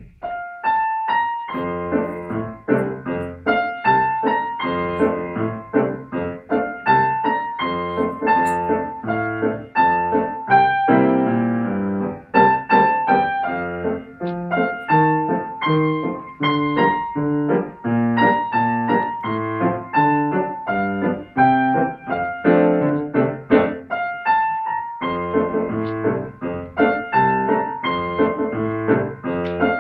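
Grand piano played solo by a child: a steady run of notes that starts right away, with a short break about 25 seconds in before the playing carries on.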